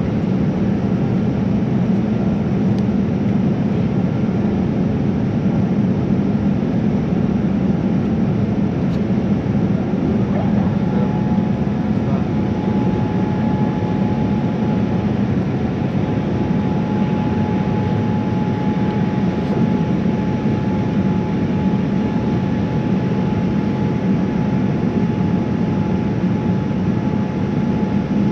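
Steady cabin noise inside a Boeing 787-9 airliner, a constant rumble of engines and airflow. A thin steady whine joins about ten seconds in.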